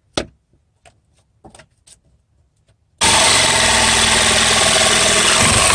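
A few light knocks, then about three seconds in a handheld electric power tool starts suddenly and runs steadily as it cuts into the underside of a wooden floor beam, chipping out a notch for a floor leveler.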